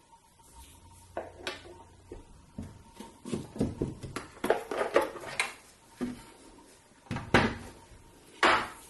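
Hollow plastic housing of a bias tape maker being handled: turned over, knocked and set down, then its storage lid unlatched and opened, giving a series of irregular knocks, clicks and rustles, the loudest about seven seconds in and near the end.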